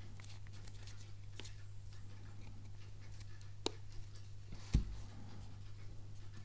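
Two-piece hard armour phone case being pressed and fitted onto a phone: small clicks and scrapes of the case parts, a sharper click about three and a half seconds in, and a louder knock just before five seconds, over a steady low hum.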